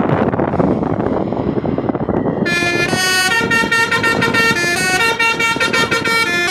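Passing heavy vehicle's engine and road noise, then, from about two and a half seconds in, a Basuri musical multi-tone horn plays a tune of quick stepped notes over it.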